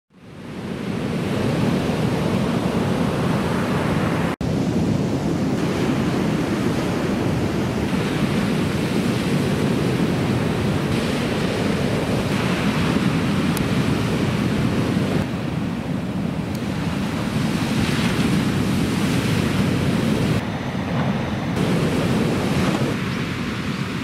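Ocean surf from a typhoon swell breaking onshore, a steady wash of waves. It fades in at the start and drops out for an instant about four seconds in.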